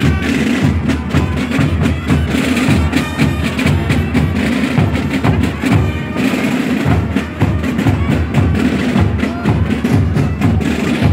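Carnival society drums, tambours and bass drums, beaten together in a fast, steady marching rhythm.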